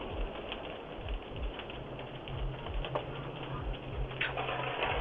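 Irregular crackling and popping from a house fire, picked up through a doorbell camera's narrow-band microphone over a low rumble. A steady low hum joins about two seconds in.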